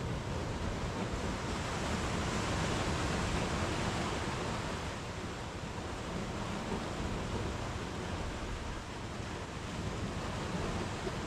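Sea waves breaking and washing up a sandy beach among rocks: a steady rush of surf that swells about two seconds in and eases a few seconds later.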